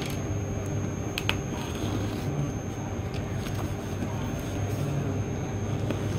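Cardboard parcel sealed with packing tape being handled and pierced with a pen: scattered sharp clicks and crinkles of tape and cardboard over a steady low hum.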